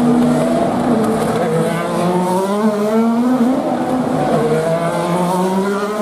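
IndyCar open-wheel race cars running through a corner one after another. Their 2.2-litre twin-turbo V6 engines rise in pitch again and again as they accelerate out, and several engine notes overlap.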